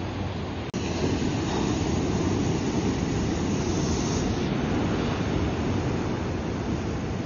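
Ocean surf: a steady rushing wash of waves over rocks and shore. It cuts out for a split second about a second in, then comes back louder.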